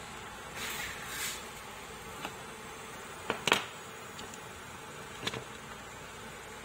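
Steady background hiss, with two soft rustles about a second in and a few sharp clicks, the loudest about three and a half seconds in.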